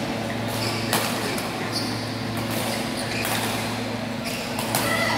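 Badminton rally: rackets striking the shuttlecock in sharp cracks about a second or so apart, with shoes squeaking and scuffing on the court floor, over a steady hum in a large hall.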